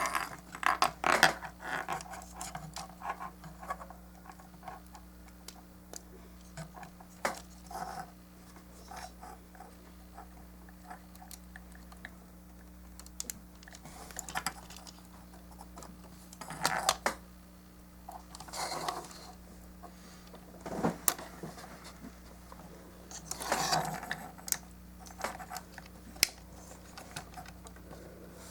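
Hard plastic model-kit parts being handled and fitted: scattered small clicks and taps with a few brief scraping rustles, over a faint steady hum.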